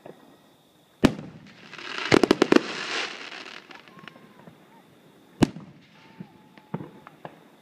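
Aerial fireworks going off: a sharp bang about a second in, then a hissing burst with a quick run of crackles, a second loud bang a little past the middle, and several smaller pops near the end.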